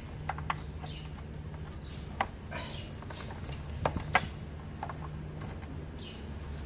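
Sharp plastic clicks and rattles of wiring-harness connectors being handled and pushed into a truck's fuse-box module, a few single clicks with the loudest about two seconds and four seconds in, over a steady low hum.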